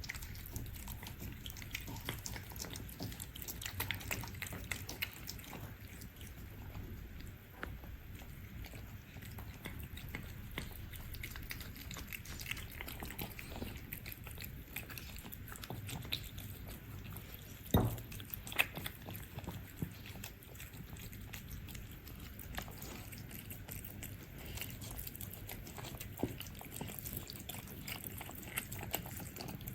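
Cats eating from bowls: many small chewing clicks and smacks throughout, with one louder knock about 18 seconds in.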